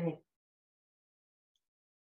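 Near silence: the audio drops to nothing right after the last syllable of a spoken word at the very start.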